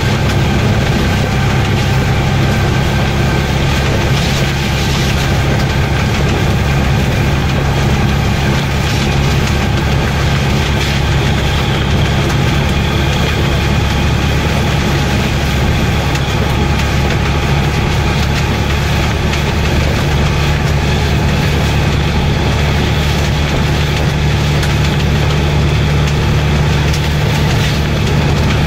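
Vehicle engine running steadily while driving, a low, even hum with a steady rushing noise over it.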